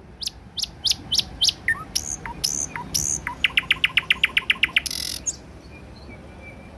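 A nightingale singing one phrase: a series of sharp, downward-sliding whistled notes, then a fast, even trill of about fourteen repeated notes, ending on a short rasping note about five seconds in.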